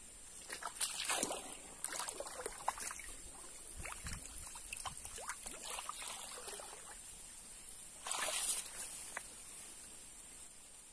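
Irregular scraping, rustling and small sloshes of water as a wooden stick is worked into a wet burrow, with two short rushes of noise, about a second in and about eight seconds in.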